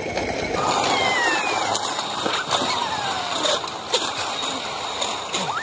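Metal roller slide rattling and rumbling steadily under riders as they roll down it, with many sharp clicks from the rollers. Several thin tones falling in pitch sound over the rattle.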